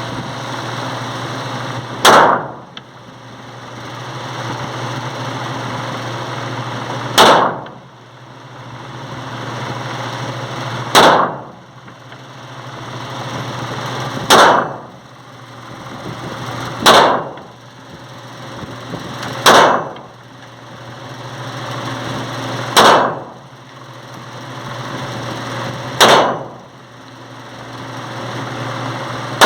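.380 Glock pistol fired single shots at a slow, deliberate pace: eight sharp shots a few seconds apart, with a ninth right at the end. A steady hiss and low hum lie between the shots.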